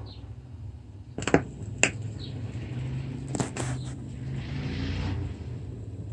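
Califone 1130K record player turning with the stylus in the record's lead-in groove: a steady low rumble and hum with four sharp clicks and pops, and a brief hiss near the end.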